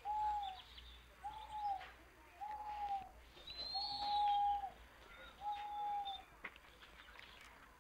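A bird giving five short, even hooting calls at one pitch, about a second apart, with a fainter, higher chirp in the middle.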